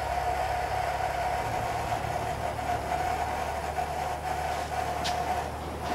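Oxygen flowing at a limited rate from a supply cylinder through the transfill hose and regulator into an aircraft's oxygen bottles: a steady whistling hiss. A short click comes about five seconds in.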